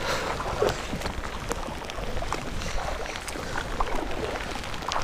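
Kayak being paddled through lake water in the rain: paddle strokes splashing over a steady hiss of rainfall, with scattered raindrop taps close by.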